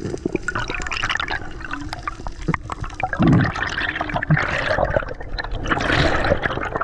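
Water splashing and bubbling in uneven surges, with scattered sharp clicks.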